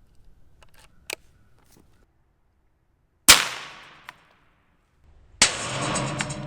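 .22 long rifle shot, a sharp crack about three seconds in that fades quickly, with a small click about a second earlier. About two seconds after the shot comes a second loud bang, followed by a ringing that is still sounding at the end.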